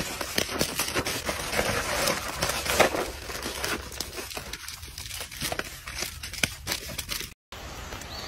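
Crinkling plastic snack packets, loose peanuts and scraping cardboard as monkeys rummage and grab in a box: a dense, irregular rustle and crackle. It stops abruptly about seven seconds in, leaving faint outdoor background.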